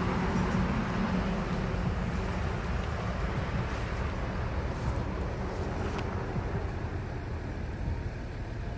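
Idling diesel engine of a Mercedes-Benz OH 1521 rear-engined coach, a steady low rumble that slowly grows fainter.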